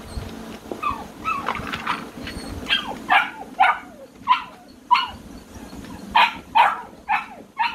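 American Bully puppy yapping: a few small squeaks, then from about three seconds in a run of about nine sharp, high barks, roughly two a second.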